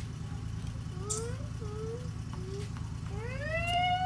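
A parked van's engine idling steadily while it warms up. Over it a child's voice calls out in short sliding sounds, then gives one long rising call near the end.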